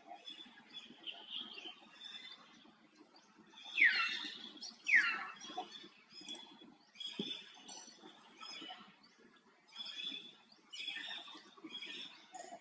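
Birds chirping in short repeated calls, with two loud high calls that sweep sharply downward about four and five seconds in.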